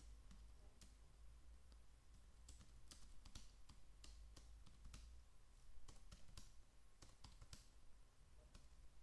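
Faint computer keyboard typing: sharp key clicks, scattered at first, then in two quick runs about two and a half seconds in and again about six seconds in, over a low steady hum.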